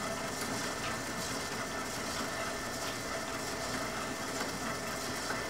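Electric stand mixer's motor running at an even speed with a constant hum, beating a sweet yeast dough.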